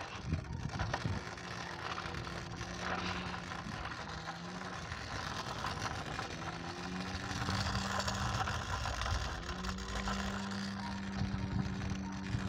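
Scooter rolling over rough asphalt: a steady rumble of the wheels on the road, with a low hum under it that steps up in pitch a couple of times as the speed changes.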